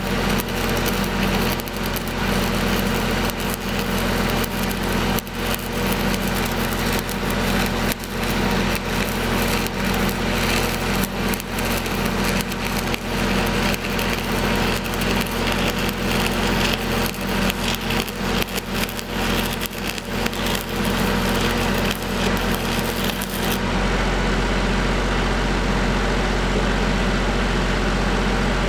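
Stick-welding arc crackling and sizzling over the steady running of an engine-driven welder. The crackle stops near the end, leaving only the welder's engine.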